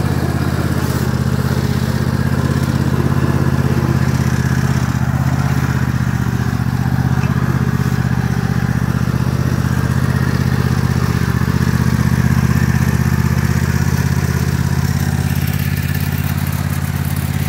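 Toro zero-turn riding mower's engine running at a steady speed while the mower drives across the lawn, a constant low engine drone.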